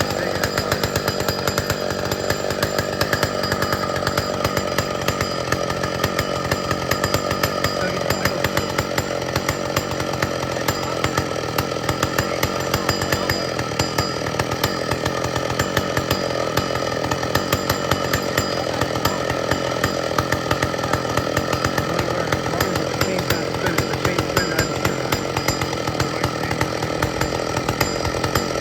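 An old McCulloch two-stroke chainsaw running steadily, its engine holding an even pitch without letting off.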